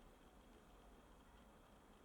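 Near silence: a faint, steady background hush of ambient noise with no distinct events.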